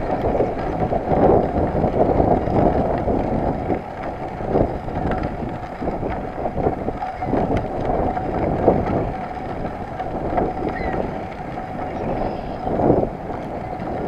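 Wind buffeting the microphone of a moving road bike, mixed with the rough rumble of its tyres rolling over a gravel path.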